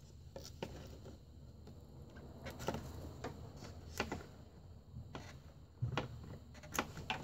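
Irregular light clicks and taps of needle-nose pliers against the plastic radiator fan shroud while a clip is worked loose.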